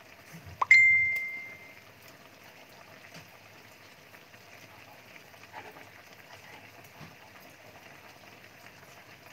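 A single bright ding about a second in, ringing and fading over about a second, over the faint steady simmer of chicken pieces boiling in a wok of liquid.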